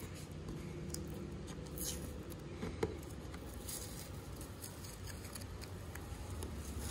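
Painter's tape being peeled slowly off filled holes in a fiberglass boat deck: faint crinkling and rustling, with a small sharp click about three seconds in.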